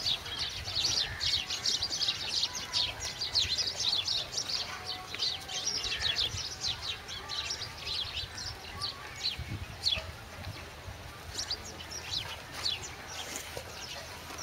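Many small birds chirping at once: dense, overlapping short high chirps that thin out after about nine seconds.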